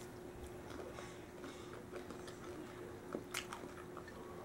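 Faint chewing of a crispy fried chicken tender, with small crackling clicks and two sharper crunches about three and a half seconds in, over a faint steady hum.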